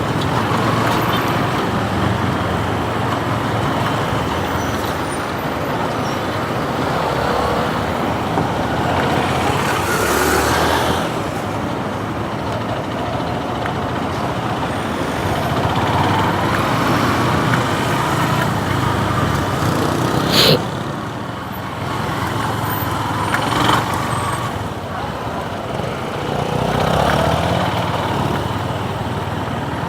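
Motorcycle riding in heavy traffic: continuous road and wind noise with other vehicles, trucks among them, passing close by, and a sudden sharp noise about twenty seconds in.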